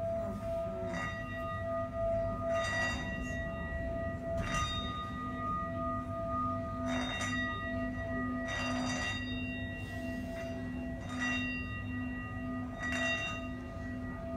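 Tibetan singing bowl sung by running a mallet around its rim: a steady ringing hum of several held tones, with a soft rubbing swish about every two seconds as the mallet goes round.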